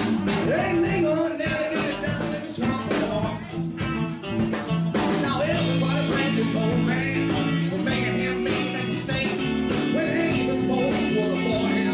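Live country-rock band playing, with electric guitar over a steady drum beat.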